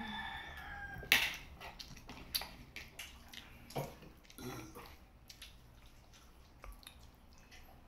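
A person eating braised pork with their fingers: wet chewing, lip smacks and mouth clicks, the sharpest click about a second in, thinning out after about five seconds.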